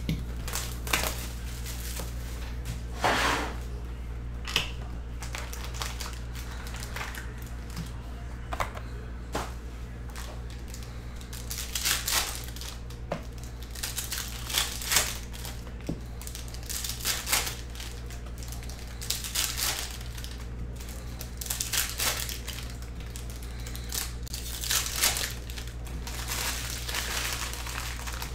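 Trading-card pack wrappers being torn open and crinkled, with cards being handled, in irregular bursts of crinkling all through. A steady low hum runs underneath.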